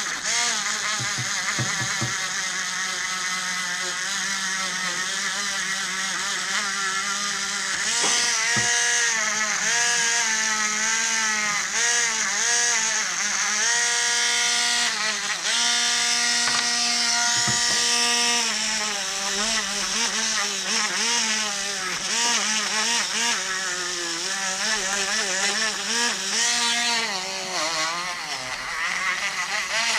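Dremel rotary tool running at high speed, its whine dipping in pitch and recovering again and again as it is pressed onto the metal, grinding off surface rust on a Norton Commando cylinder-head part.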